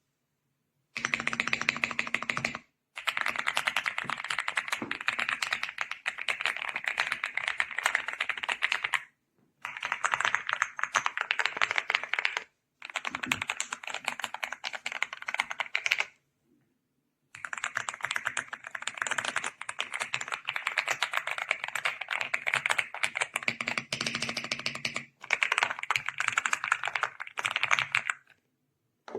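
Fast typing on the EPOMAKER x Aula F75 gasket-mount mechanical keyboard: a dense run of key clacks in six stretches of a few seconds each, with short silent gaps between them.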